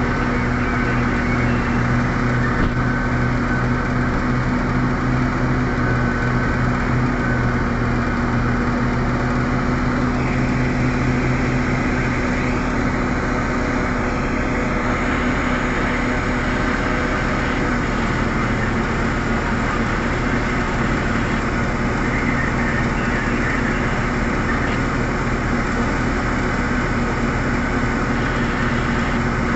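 Heavy diesel engines of a large hydraulic mining excavator and a Cat 777D haul truck running steadily as the excavator digs and loads. The engine note shifts down a little partway through.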